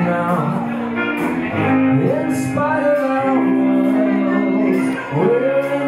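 A man singing live to his own electric guitar, a slow melody with a long held note in the middle.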